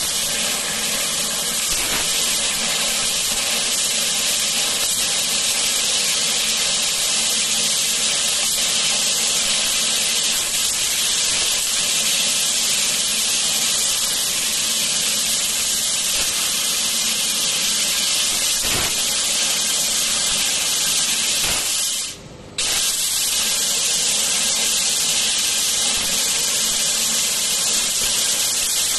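800 W fiber laser cutting machine cutting a thin metal sheet: a loud, steady hiss with a faint even hum underneath. The hiss drops out for about half a second roughly three quarters of the way through, then resumes.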